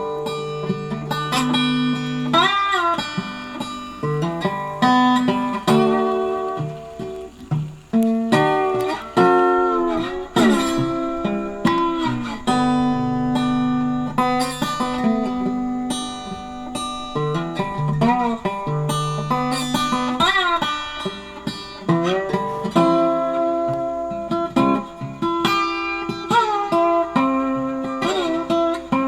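Background music: acoustic blues guitar picking, with notes that slide up and down in pitch.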